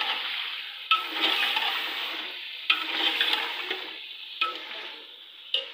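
Food sizzling in a hot pan while being stirred: four sharp scraping strokes about every one and a half to two seconds, each followed by a swell of sizzling that fades, the whole growing quieter toward the end.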